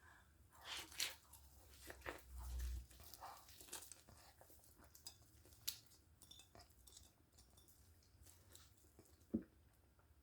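Chewing a whole toasted pancake crammed into the mouth at once: irregular crunches and wet mouth noises, thick in the first few seconds, then sparser, with one sharp click about nine seconds in.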